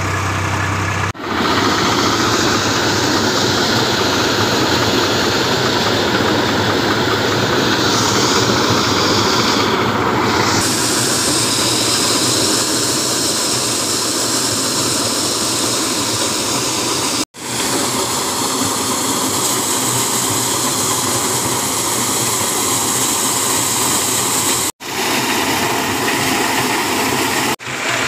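Tractor-driven maize sheller running steadily, the tractor engine and the machine's threshing noise blended into a loud, even din as corn cobs are fed in. The sound breaks off sharply a few times, and the first second is the tractor engine on the move.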